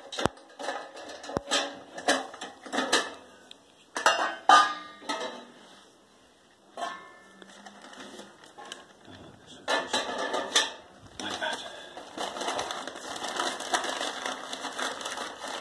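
Sheet-metal parts of a paper-log briquette press clanking and rattling as its perforated inner box is lifted out and set down on tiles, then newspaper rustling and crinkling as it is laid over the press.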